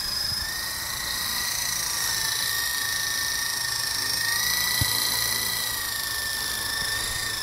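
Esky Lama V3 coaxial RC helicopter in flight: a steady high whine from its electric motors and spinning rotors, drifting slightly up and down in pitch as it manoeuvres.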